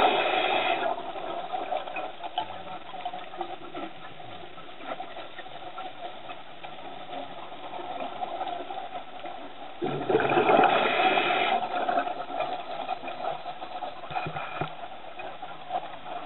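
Scuba exhalation bubbles rushing past an underwater camera, loud at the very start and again about ten seconds in, with a quieter steady hiss of water and breathing gear between.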